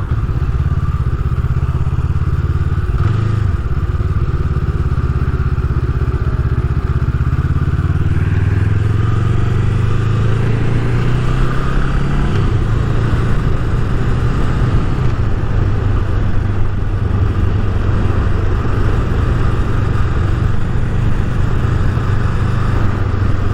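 Honda CMX500 Rebel's 471 cc parallel-twin engine running under way, heard from a helmet-mounted microphone. The engine note rises about a third of the way in, then holds steady.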